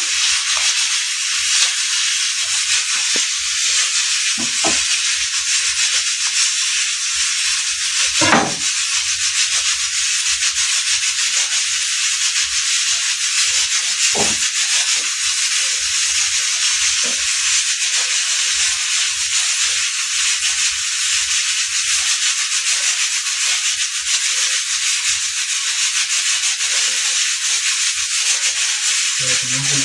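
Red onions sizzling in hot oil in a pot, a steady hiss with a few clicks and knocks, the strongest about eight seconds in.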